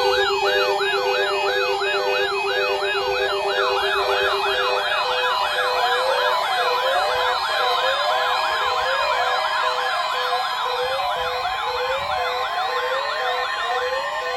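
Several weather radio receivers sounding their electronic siren alarms at once, set off by the weekly tone alert test. Fast rising-and-falling siren sweeps overlap and drift out of step with one another, over a pulsing beep and a steady tone. A low steady tone cuts off about five seconds in.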